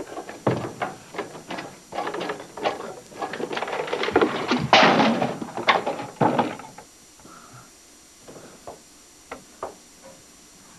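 A physical scuffle on a floor: a fast run of thumps, knocks and scuffing, densest about halfway through, then dying down to a few scattered knocks.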